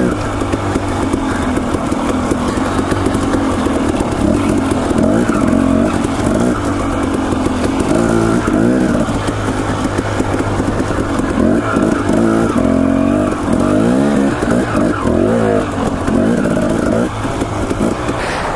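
Dirt bike engine running under way, its revs rising and falling again and again as the throttle is worked.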